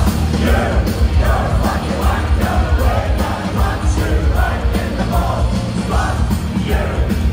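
A live pirate metal band playing loud through the PA, heard from inside the crowd: the full band with drums keeping a steady driving beat, and singing over it.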